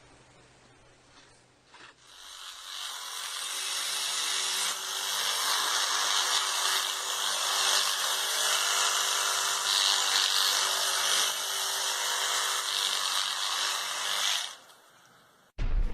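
Steady mechanical whirring of a small motorised tool, starting about two seconds in and stopping shortly before the end.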